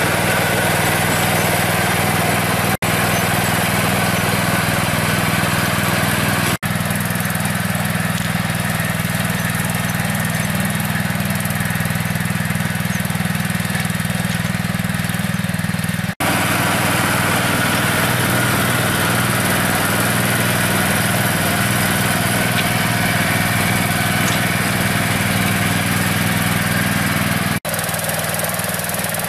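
DAKR Panter FD-5 tractor's engine running steadily while ploughing, broken by short dropouts four times.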